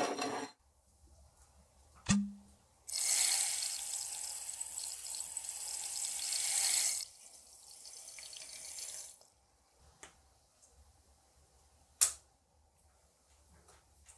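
Liquid rushing and hissing in a tall glass cylinder of cleaning solution: loud for about four seconds, then quieter until about nine seconds in. A sharp click with a brief ring comes before it, and another sharp click near the end.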